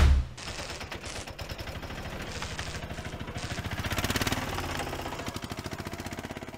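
Animated-intro sound effects: a fast, even digital crackle with patches of hiss switching on and off, swelling about four seconds in and fading near the end.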